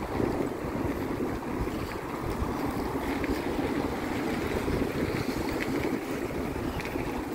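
Wind rushing steadily over the microphone of a camera on a moving bicycle, a continuous low rumble with no distinct events.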